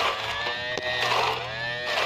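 Homemade 12 V DC-motor grass cutter whining, its pitch sagging and recovering about once a second as the spinning head is swung into the grass, with a couple of sharp ticks.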